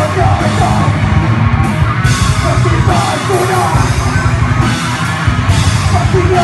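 Heavy metal band playing live: distorted electric guitars, bass and a full drum kit with crashing cymbals, loud and dense throughout.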